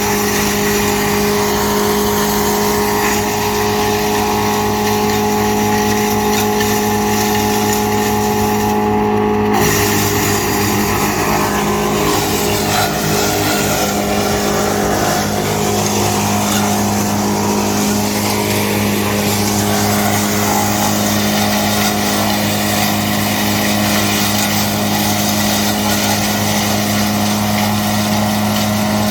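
GL&D M175DS tractor-mounted woodchipper running off the tractor, a loud steady machine hum with a noisy rush over it that changes character about ten seconds in.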